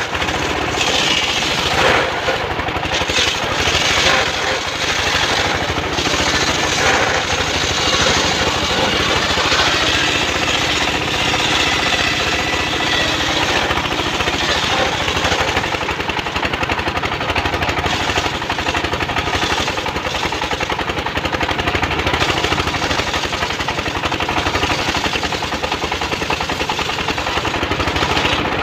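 Homemade engine-driven circular saw bench ripping a mahogany log lengthwise: the blade cuts steadily through the wood with a loud, unbroken rasping noise, the engine running underneath.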